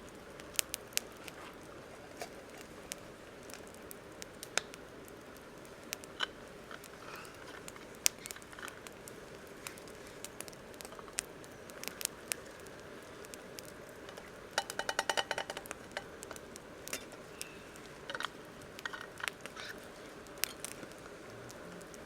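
Campfire crackling: scattered sharp pops over steady background noise, with a quick run of rapid pops about fifteen seconds in.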